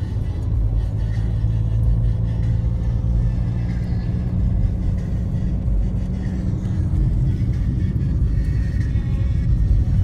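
Steady low road and engine rumble heard from inside a moving car, with faint music underneath.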